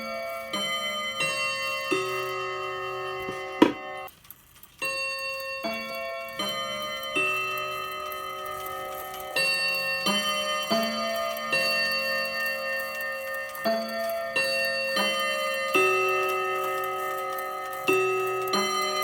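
Mantel clock chime: hammers striking the chime rods in turn, a slow tune of ringing notes of different pitches, each left to sound into the next. A sharp click comes about three and a half seconds in, followed by a short quiet gap before the notes go on.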